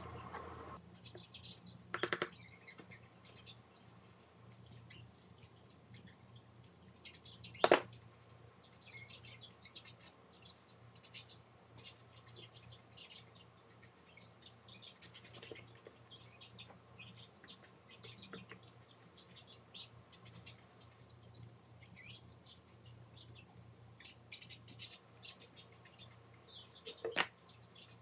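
Small hand tools working on a tablet's internals during a charging-port repair: a long run of light scratches and ticks, with sharp clicks about two seconds in, near eight seconds and near the end.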